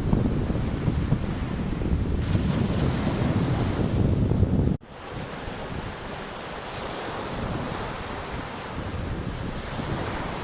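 Sea waves washing with wind buffeting the microphone in a heavy low rumble; about five seconds in the sound cuts off abruptly and carries on as a quieter, steady wash of surf.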